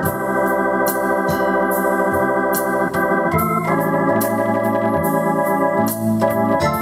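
Yamaha PSR-750 keyboard on its Hammond B-3 organ voice playing sustained chords with a moving bass line. The chords change about three seconds in and again near the end, over a steady drum rhythm from the keyboard's rhythm section.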